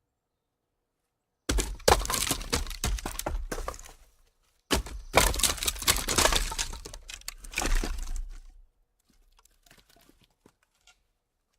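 Light wooden logs rolling down a small slope and clattering against one another in two runs of knocks, each starting suddenly and dying away, the second longer, with a few faint taps after.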